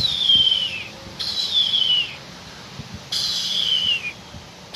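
A person imitating a blue jay's call: a whistle made together with a burst of a "k" sound, three times. Each call opens with a short hiss and then falls in pitch, lasting just under a second.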